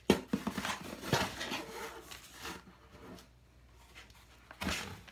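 Ribbon being pulled through a slit in a cardboard box, with the cardboard flaps rustling, scraping and knocking for the first couple of seconds. It quietens after that, with one short scrape near the end.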